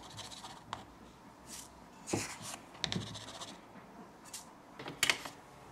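A coffee scoop digging into ground coffee in a canister and tipping the grounds into a paper filter: a series of short, soft scrapes and rustles.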